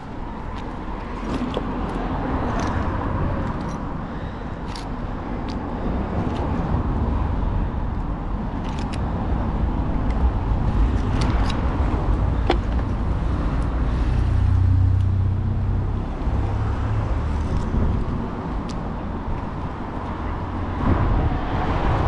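Road traffic passing, a steady low rumble that swells and fades as vehicles go by, with scattered sharp clicks and knocks.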